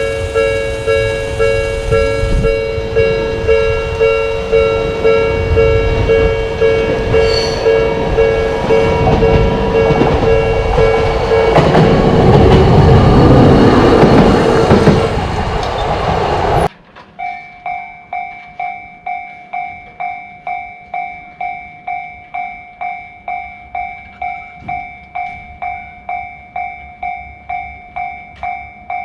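Japanese level-crossing warning bell ringing steadily at about two strokes a second while a Toden Arakawa Line tram runs through the crossing, the passing noise loudest just before the sound cuts off abruptly about two-thirds of the way through. A different crossing bell, higher-pitched and thinner, then rings at the same steady pace.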